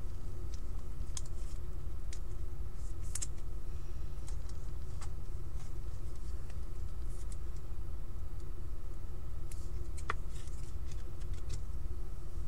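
Scattered light clicks and slides of trading cards being handled and flipped through by hand, over a steady low hum.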